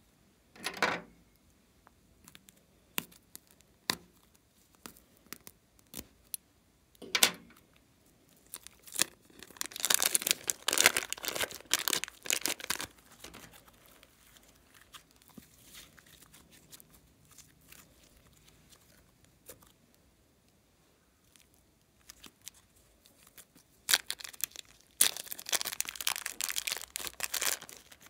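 Hands working glossy slime: it is squeezed, stretched and pulled apart, giving short sticky squelches and longer runs of crackling and tearing. The runs come twice, about a third of the way in and near the end, with quiet between.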